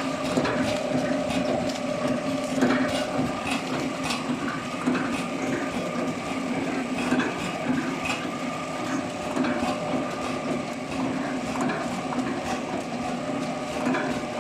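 Horizontal flow-pack packaging machine running: a steady mechanical hum with frequent clicks and clatter from its moving parts.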